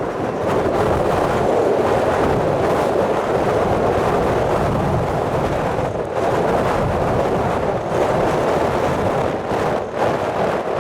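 Jet engine noise from an arriving Boeing 777 freighter's GE90 turbofans, a steady roar mixed with gusty wind buffeting the microphone.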